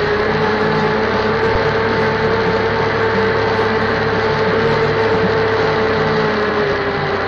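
Massey Ferguson tractor engine running steadily while working the soil with a tillage implement, with a steady whine over the engine's low pulsing.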